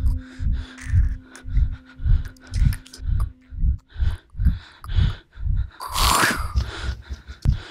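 Soundtrack of deep, evenly spaced thumps at a little over two a second, under a steady hum that stops about four seconds in. A loud rush of noise swells and fades about six seconds in.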